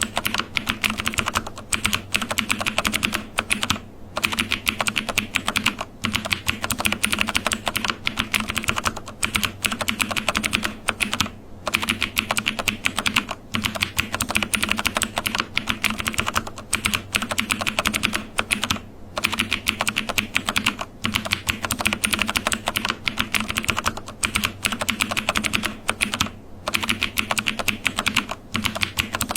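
Fast, continuous typing on a computer keyboard, a dense run of key clicks broken by short pauses every few seconds.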